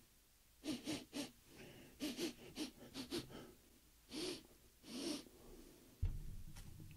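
A man sniffing through his nose: a quick run of short sniffs, then two longer ones. About six seconds in comes a soft low thump as a ball of wool is set down on a wooden table.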